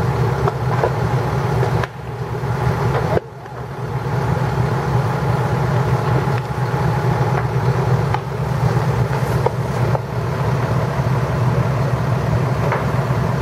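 Large fire burning with scattered pops and crackles over a steady low rumble. The rumble drops away briefly about two seconds in.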